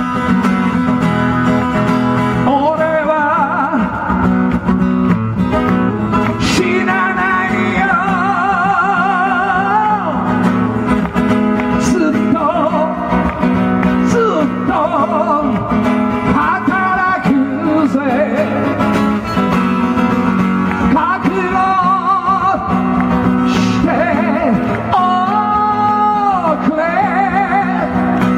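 A man singing live to his own acoustic guitar, with a wavering vibrato on the held notes.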